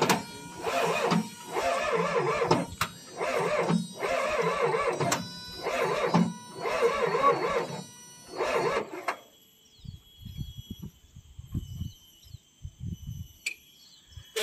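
Excavator diesel engine being cranked by its starter motor in about six short bursts of a second or so each, stopping about nine seconds in; the abandoned engine does not catch.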